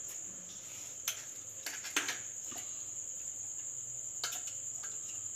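Crickets chirping steadily in the background. A metal spoon clinks and scrapes a few times against a small metal pot as boiled potatoes are mashed in it.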